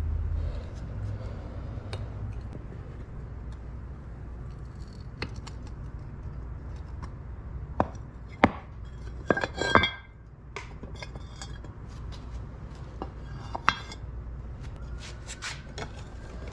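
Steel tongs and an ingot mold clinking and knocking as a freshly cast copper ingot is knocked out of the mold onto a brick: a cluster of sharp, ringing metal strikes about halfway through and another single strike later, over a low steady rumble.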